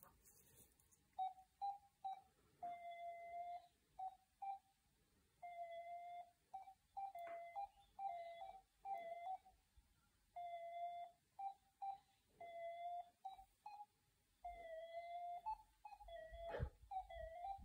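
RadioMaster radio transmitter beeping from its speaker: an irregular run of short beeps and longer held tones, all at one middle pitch, starting and stopping quickly as it reacts to ExpressLRS telemetry from the receiver. A few handling clicks and knocks, the loudest near the end.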